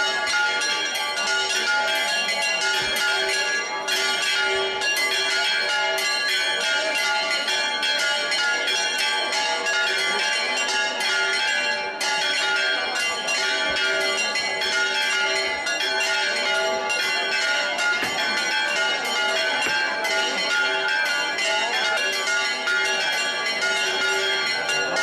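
Church bells pealing in a rapid, unbroken run of strikes, with their steady ringing tones sounding underneath.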